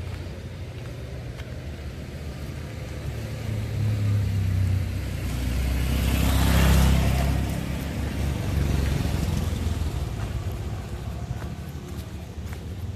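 A motor vehicle passes by on the street, its engine rumble and tyre noise swelling to a peak about halfway through and then fading away, over steady traffic sound.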